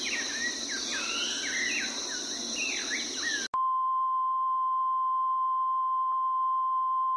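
Birds chirping over a steady high insect drone, cut off suddenly about three and a half seconds in by a steady 1 kHz test tone, the reference tone that goes with colour bars.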